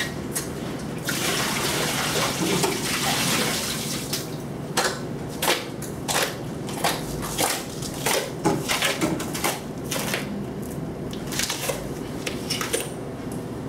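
Water poured from a bucket splashing and spreading over a concrete floor for a few seconds. It is followed by a long run of sharp slaps and clicks: sandal footsteps on the wet concrete.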